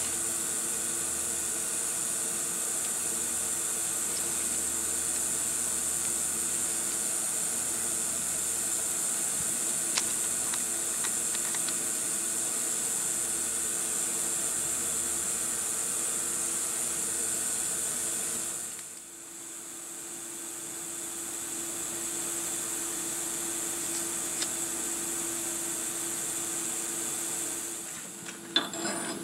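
CNC-converted 9x20 benchtop metal lathe running a turning pass on a bearing adapter: a steady motor and spindle whine with hiss. About two-thirds of the way through, the sound dips sharply, then builds back up gradually. Near the end it falls away and a few sharp clicks follow.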